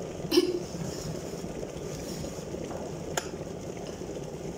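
Wire whisk stirring flour being dry-browned in a pan on a gas stove, with a sharp clack about half a second in and a single click around three seconds, over a steady low rushing noise.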